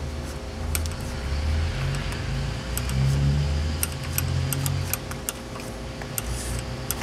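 Light metallic clicks and ticks of a screwdriver backing a screw out of the interior handle of a 1956 Ford F100 door: an ordinary screw fitted where an Allen set screw belongs. Under them runs a steady low rumble.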